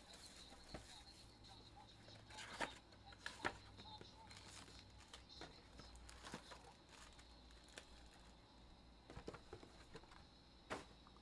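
Faint crinkling and tearing of plastic shrink wrap as a sealed box of trading cards is opened, with scattered light clicks and taps as the foil card packs are handled.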